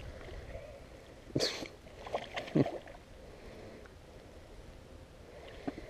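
Water splashing at the side of a boat while a hooked bass is fought to the boat, with a sharp splash about a second and a half in and a few shorter ones soon after.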